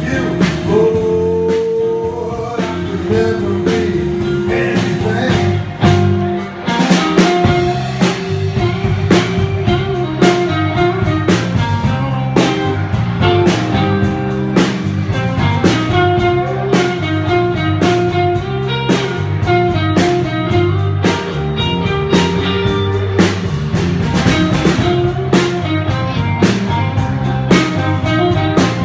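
Live blues band playing: electric guitar solo over bass and drums.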